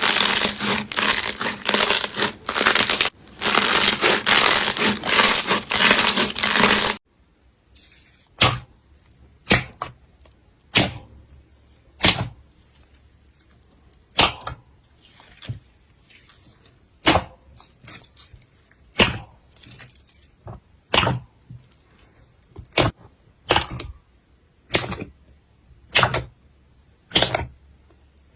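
Slime being squished and worked in the hands close to the microphone: dense, loud crackling for about seven seconds, then after a cut, separate crisp pops and clicks about once a second.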